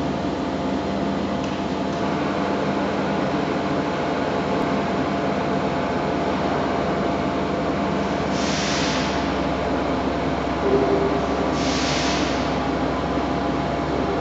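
Mecof CS8 bed milling machine running under pendant control: a steady motor and gearbox hum with several steady tones. A short high hiss comes twice, about three seconds apart, and a brief louder tone sounds just before the second.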